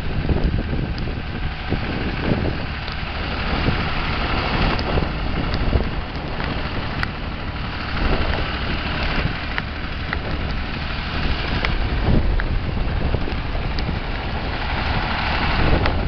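Fordson Super Dexta's three-cylinder diesel engine running steadily under load as the tractor pulls a mounted plough through the field.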